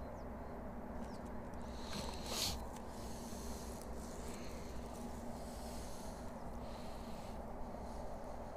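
Quiet riverside background with a steady low hum. About two seconds in comes a short rustle as hands handle the fishing line and tackle close to the microphone, and softer rustles follow.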